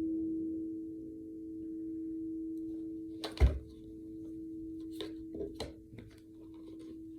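Singing bowl ringing on as two steady tones that swell and fade in slow pulses. A sharp knock comes about three and a half seconds in, followed by a few lighter clicks.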